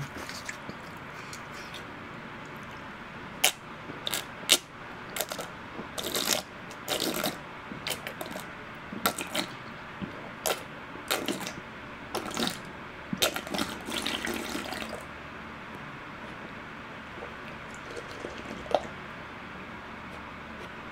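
A person drinking the leftover cereal milk straight from a glass bowl, with wet gulps and slurps in irregular bursts for the first fifteen seconds or so, then only a few faint swallows.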